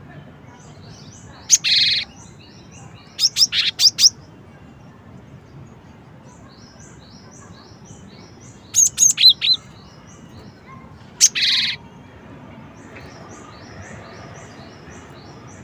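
Cinereous tit (gelatik batu) calling in four loud spurts: a harsh buzzy note, a quick run of four sharp notes, another quick run with looping whistled notes, then another buzzy note. Fainter, rapidly repeated high chirps from another bird go on in the background.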